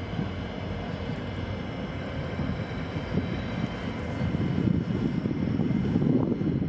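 Diesel-electric locomotive running, a steady engine drone over a low rumble that grows louder in the second half.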